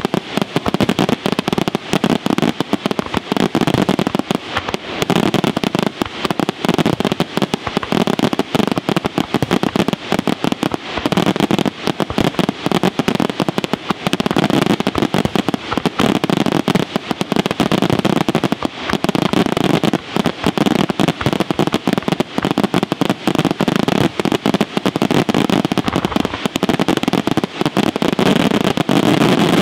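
A fireworks display firing a dense, unbroken barrage of aerial shell bursts and crackling, the reports following one another so quickly that they run together.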